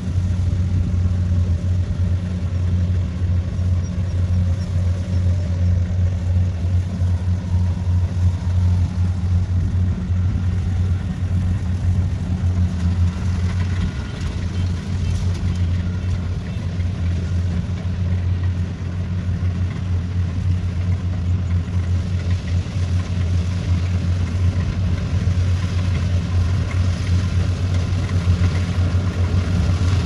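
Tracked rice combine harvester's diesel engine running at a steady working speed while it cuts rice, an even low drone with no change in pitch.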